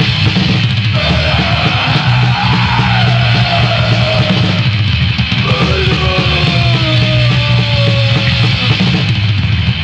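Hardcore punk band playing at full volume in a rehearsal recording: fast, dense drumming under heavily distorted guitar and bass, with shouted vocals.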